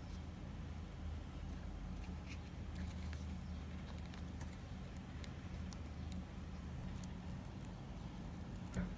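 Hobby knife blade scraping and nicking the thin plastic jacket of RG179 coax cable while stripping its insulation, heard as faint scattered clicks and scratches. A steady low hum runs underneath.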